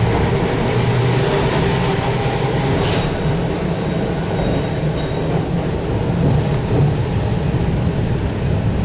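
A vintage tram running along its rails, heard from inside the passenger car: a steady rumble of wheels and running gear with a low motor hum, and one sharp click about three seconds in.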